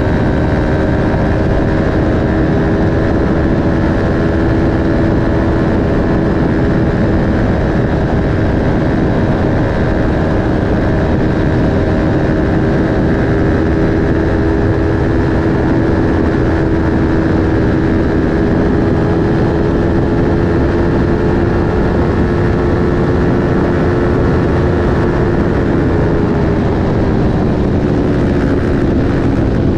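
Aprilia Tuono V4 1100 RR's V4 engine through an Akrapovic slip-on exhaust, pulling steadily at high highway speed, heard from the handlebars with heavy wind rush. The engine note holds nearly even, rising slightly, then eases off a little near the end.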